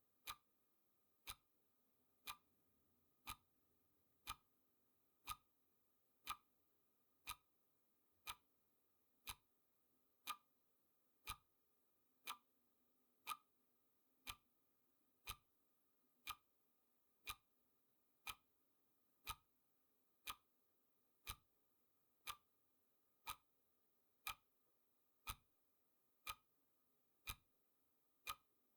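Clock ticking sound effect, one sharp tick each second, with near silence between ticks.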